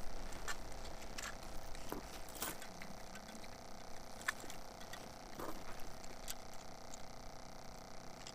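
Scattered light mechanical clicks and ticks, irregularly spaced, from an ice fishing tip-up being handled and set over the hole.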